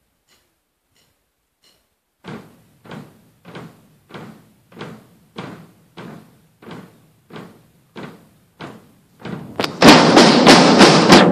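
Drum kits played by a group: first a steady, soft beat of single drum strokes, about one and a half a second. About ten seconds in, the kits come in loud with drums and cymbals together.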